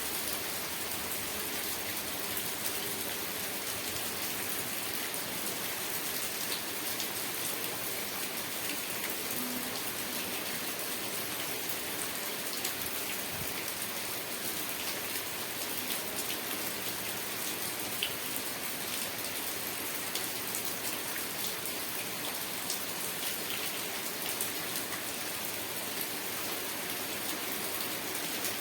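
Steady rain falling, with a constant hiss and scattered individual drops ticking on surfaces.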